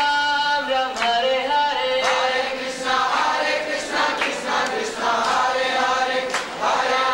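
A mixed group of devotees singing a kirtan together in chorus, with sharp percussive strikes now and then.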